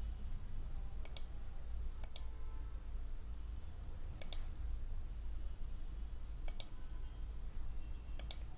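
Computer mouse button clicks: five separate clicks, irregularly spaced a second or more apart, each a quick press-and-release, over a low steady hum.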